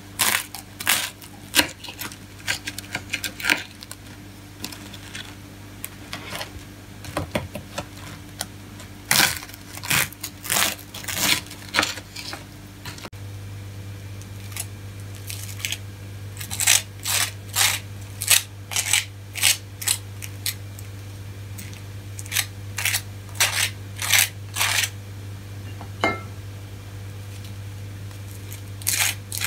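A knife cutting through crisp toast on a wooden board at the start, then scraping butter across slices of toast in runs of short, crisp strokes.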